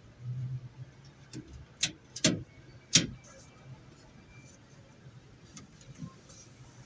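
Toyota HiAce sliding-door lock mechanism clicking sharply about four times as its latch rods and lever are worked by hand, the loudest click near the end of the run; the lock is faulty and will not open from outside, and the repairers call it damaged.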